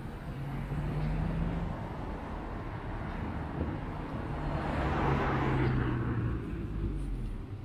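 Road traffic: a car passing close by, its engine hum and tyre noise swelling to the loudest about five seconds in and fading near the end.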